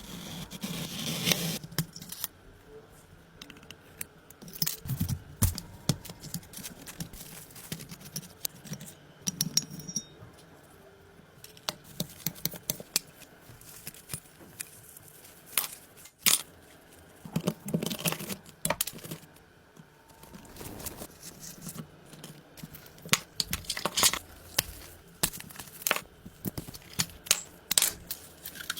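Hands working on small hard parts: irregular sharp clicks, rattles and short scraping strokes, coming in clusters with quiet gaps between.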